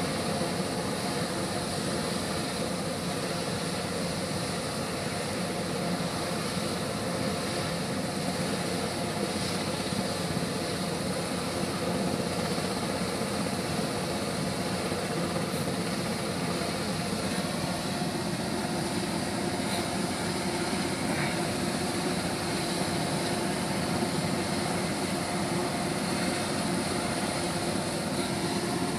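Helicopter running close by, its engine and rotor noise holding steady at one level, with no rise or fall.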